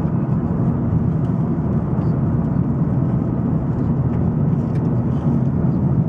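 Steady low rumble of a car driving, heard from inside the cabin: road and engine noise at an even level.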